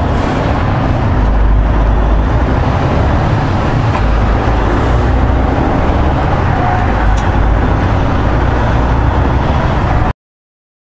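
Steady low drone of a semi-truck's diesel engine and road noise inside the cab at highway speed. It cuts off suddenly near the end.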